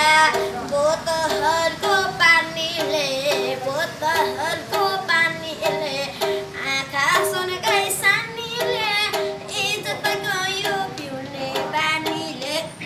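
A boy singing a Nepali folk melody to his own sarangi, the bowed strings repeating a short steady note beneath his voice.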